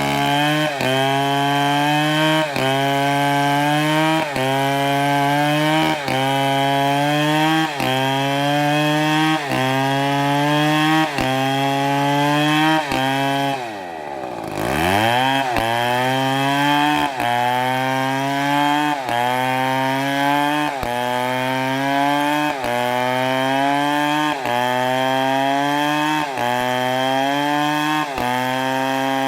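Big two-stroke MS720 chainsaw running at high revs while cutting wood, its pitch dipping and recovering in a steady pulse about three times every two seconds. About halfway the revs fall away sharply and then climb straight back up.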